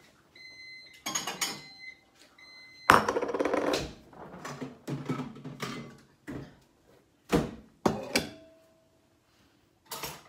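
Microwave oven beeping about three times as it finishes heating rice. Then a loud clatter about three seconds in, followed by several knocks and clinks of dishes, with a plate set down near the end.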